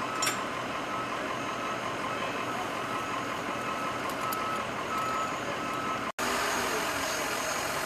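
A vehicle's reversing alarm beeping at a steady, even pace over steady background vehicle noise, stopping a little over five seconds in.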